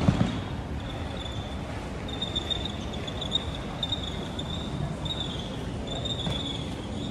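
Steady hum and hiss of an underground metro station concourse, with a thin high whine that comes and goes. A short low knock at the very start.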